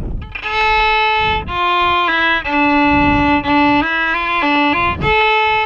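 Solo violin playing a slow waltz tune in long bowed notes, one melody line starting about half a second in.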